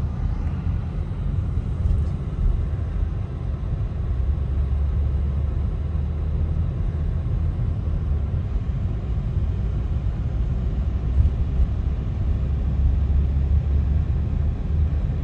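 Steady low rumble inside a car's cabin, the drone of the vehicle heard through its body and windows.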